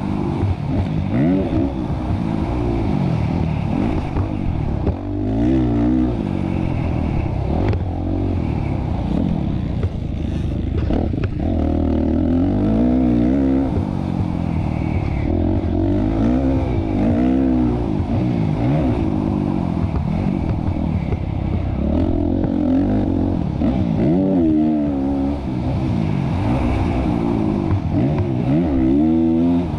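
Motocross bike engine under race throttle, its pitch climbing and dropping every couple of seconds as the throttle is opened and shut through the turns and straights, heard from on the bike itself.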